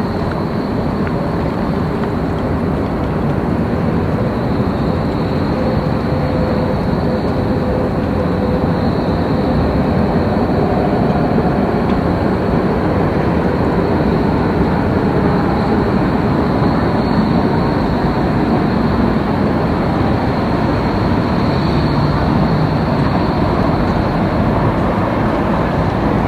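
Busy city-square ambience: a steady, dense rumble of passing road and rail traffic with faint steady tones through it, and no sudden events.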